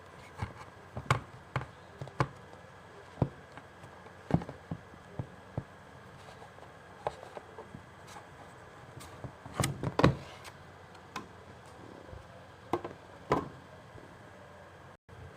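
Hands handling a CD album's packaging and contents: scattered taps, clicks and knocks as pieces are picked up and set down, with the loudest cluster about ten seconds in.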